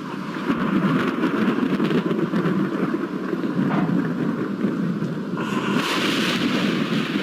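Thunderstorm: steady heavy rain with rumbling thunder, and a sharper, hissier surge about five and a half seconds in.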